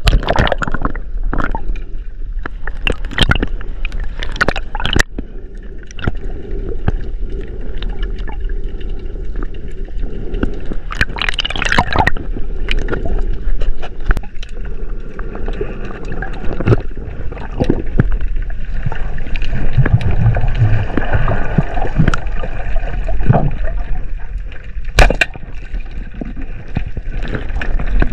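Muffled underwater noise picked up by an action camera's housing: water rushing and sloshing, with scattered clicks and knocks throughout. There is one loud, sharp knock near the end.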